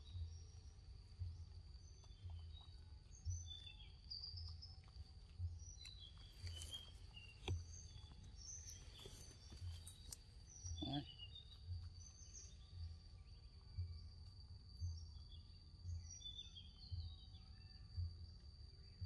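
Forest ambience: scattered short bird chirps over a steady high insect drone, with a soft low pulse about once a second and a brief rising call about eleven seconds in.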